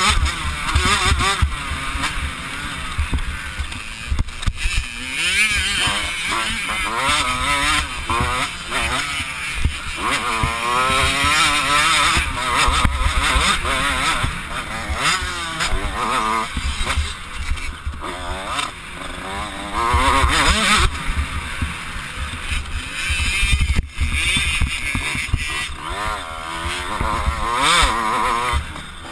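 Two-stroke 85cc motocross bike engine revving up and down over and over as the rider accelerates, shifts and backs off along the track.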